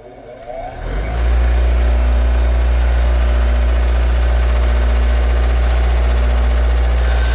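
Electric motor of a wire-wheel bench grinder spinning up over about a second, then running at a steady hum. Near the end a harsher hiss joins, as of the wheel starting to scrub metal.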